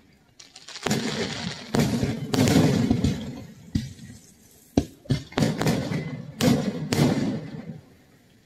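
Aerial fireworks going off: a run of bangs, each followed by a crackling hiss that dies away.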